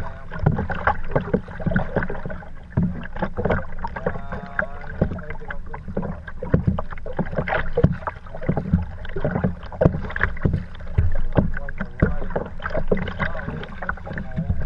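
Choppy river water splashing and slapping against the hull of a small boat close to the microphone, an irregular run of splashes.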